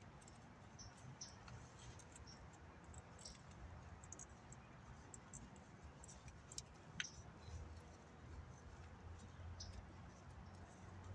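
Faint scattered small clicks and scratches of hands working at a plastic water pipe in soil, with one sharper click about seven seconds in, over a low steady rumble.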